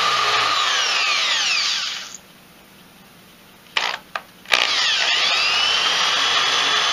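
Corded electric drill running a countersink bit into a wooden board, its motor whine sweeping up and down in pitch. It stops about two seconds in, gives three short bursts, then runs steadily again.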